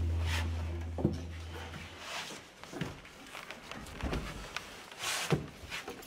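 Irregular knocks, bumps and scrapes as a firefighter in breathing apparatus crawls through a plywood tunnel, body and cylinder hitting the wooden walls. Background music fades out in the first two seconds.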